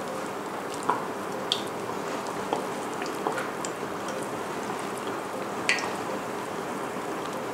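Ground-chicken balls deep-frying in a pot of hot oil: a steady sizzle with scattered small pops and crackles.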